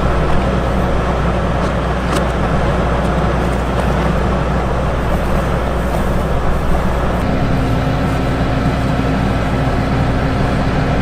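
Crawler-tracked combine harvester running steadily: constant engine and machinery noise with a strong low hum. A steady tone joins the noise about seven seconds in.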